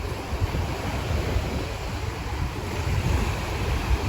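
Wind buffeting the microphone: a steady rushing noise with uneven low rumbling gusts.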